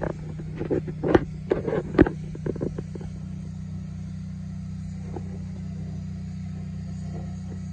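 New Holland TC40A tractor's diesel engine idling steadily. Over the first three seconds a cluster of sharp knocks and clatter sits on top of it.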